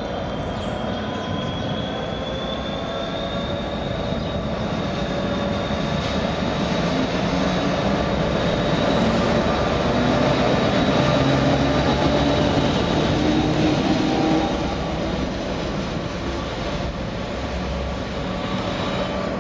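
Irish Rail 201 Class diesel-electric locomotive and its freight wagons passing close, engine running over the rumble of wheels on the rails, with steady high whining tones throughout. The sound builds to its loudest just past the middle, then eases off.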